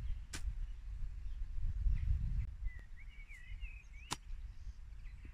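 Golf club on grass and ball, two sharp clicks: a practice swing clipping the turf about a third of a second in, then, about four seconds in, the club striking the ball for a short chip shot.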